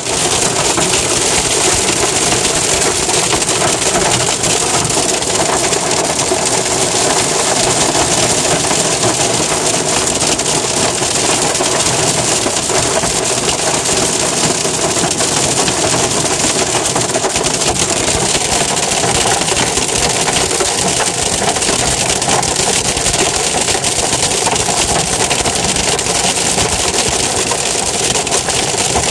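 Hail and heavy rain hitting a car's roof and windshield, heard from inside the car: a loud, dense, steady clatter that never lets up.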